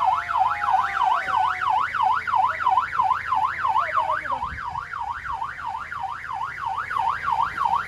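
Electronic siren warbling fast and steadily, its pitch rising and falling about three and a half times a second, over a faint low engine hum.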